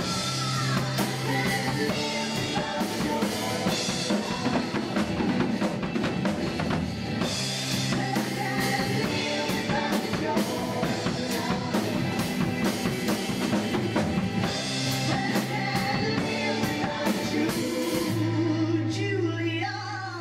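Acoustic drum kit played live over a recorded rock song with singing, with busy fills and cymbal crashes. Near the end the drumming stops, a final chord and sung note are held, and the music begins to die away.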